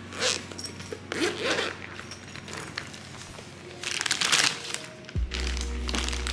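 Clear plastic bag crinkling and rustling in bursts as it is handled and pulled open, over background music; a deep bass note comes in about five seconds in.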